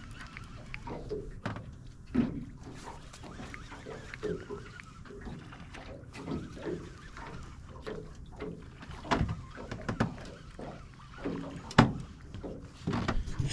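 Irregular knocks and clatter of fishing rod and boat handling while a catfish is reeled in, with wind rumbling on the microphone. The sharpest knock comes near the end.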